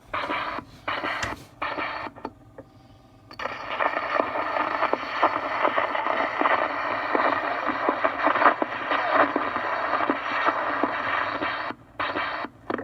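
Edison Diamond Disc phonograph playing back a home-cut test groove: scratchy surface noise and crackle, with the recorded voice too faint to make out. It breaks off a few times in the first couple of seconds and goes quiet for about a second before the noise resumes steadily.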